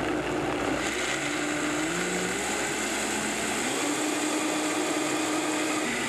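Countertop blender running steadily, blending soaked garbanzo beans, oats and water into a thick waffle batter. The motor's pitch steps up and down a few times.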